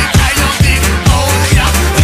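Electronic music with a steady beat, about two kicks a second, over a heavy bass line.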